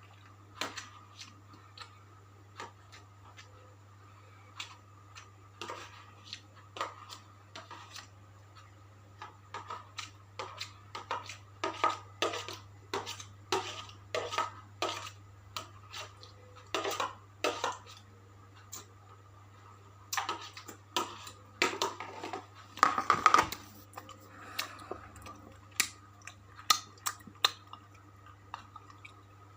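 Eating ayam penyet with sambal up close: irregular clicks and taps against a plate mixed with chewing. Sparse at first, busier through the middle, loudest a little past two-thirds through.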